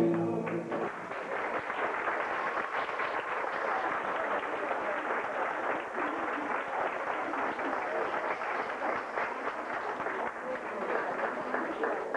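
A folk band's final held chord ends about a second in. An audience's applause follows and keeps up steadily.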